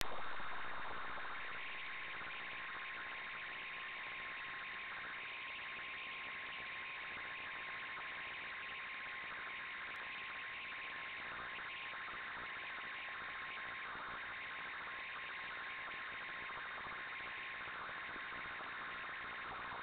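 Steady static hiss with a thin, unchanging whine running through it, a little louder in the first second or two before settling: noise on the audio track of an analog FPV video receiver's recording.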